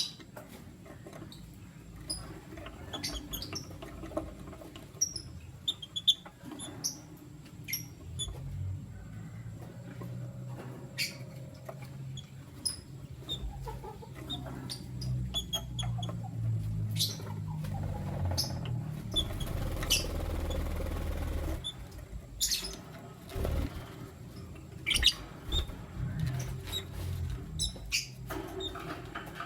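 Lutino lovebirds giving short, high, scattered chirps, with sharp clicks and taps among them, over a low steady background rumble. A little past the middle there is a few seconds of rustling.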